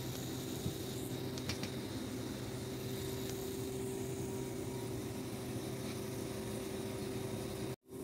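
Rooftop air-conditioning outdoor units running: a steady hum of fans and compressors with a few held low tones. The sound cuts out for an instant near the end.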